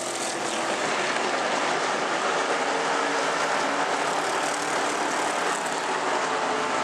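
Several dirt-track pure stock race cars' engines running at racing speed around the oval, several cars at once. The sound is a steady, dense blend with faint shifting engine pitches.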